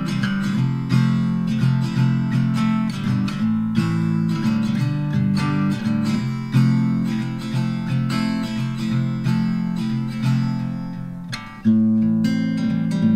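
Background music of strummed and plucked acoustic guitar, with a brief drop about eleven and a half seconds in before a louder chord comes in.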